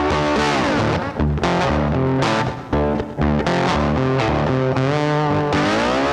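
Background rock music led by distorted electric guitar, with a pitch slide down about half a second in and a slide up near the end.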